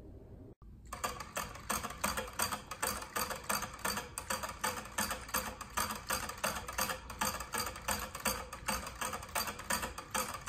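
Shih Tzu licking at the metal drinking tube of a gravity water bottle, making a quick, even clicking of about three licks a second that starts about a second in.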